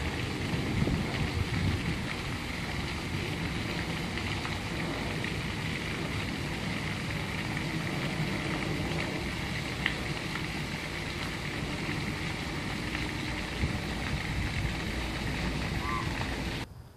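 Steady outdoor hiss and rumble, gusty and stronger in the low range for the first couple of seconds, with a few faint clicks and a brief faint chirp near the end.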